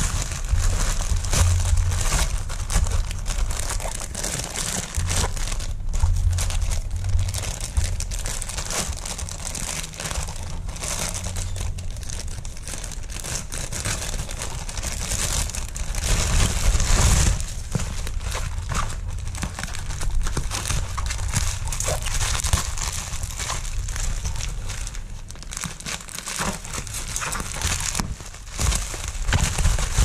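Plastic poly mailer bag crinkling and tearing as hands rip it open, with bubble wrap crinkling near the end.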